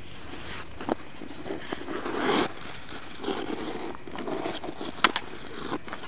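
Ice skate blades scraping and carving across rough outdoor ice, with one longer, louder scrape about two seconds in. Several sharp clicks are scattered through it, the loudest about five seconds in.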